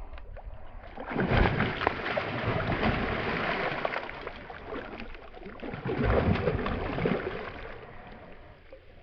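A hooked pike thrashing at the water surface, splashing; the splashing surges about a second in and again about six seconds in, then dies down near the end.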